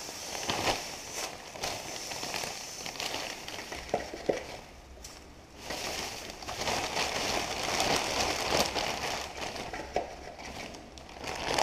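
Granular activated carbon pouring out of a plastic bag through a funnel into a filter tank, a crackling hiss of tumbling granules, while the plastic bag crinkles. The bag is shaken empty, loudest in the second half.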